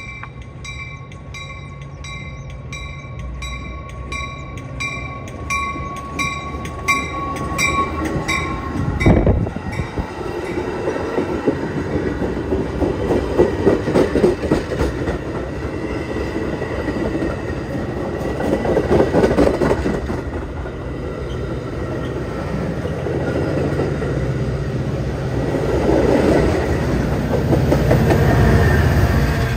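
A warning bell rings about twice a second while a Metra bilevel commuter train approaches. About nine seconds in, the lead cab car arrives with a thump. The train's wheels then clatter over the rails at close range, swelling as each set of trucks goes by, and are loudest near the end as the diesel locomotive pushing at the rear passes.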